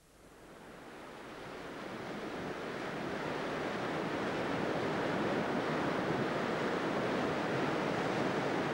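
Surf washing onto a sandy beach: a steady rush of waves that fades in over the first few seconds and then holds even.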